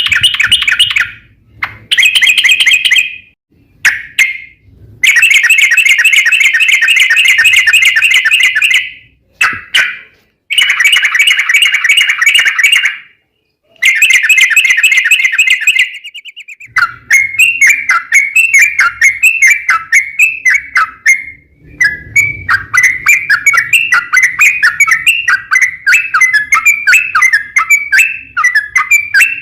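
Yellow-vented bulbul (trucuk) song in long rapid trills ('ropel panjang'): loud bursts of fast repeated notes, each one to four seconds long, with short breaks between. Past the middle it turns into an unbroken run of quick, varied chattering notes.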